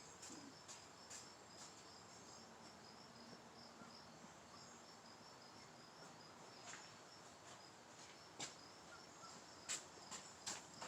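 Near silence with faint insect chirping, a steady run of short, high, evenly repeated pulses, and a few faint scattered clicks.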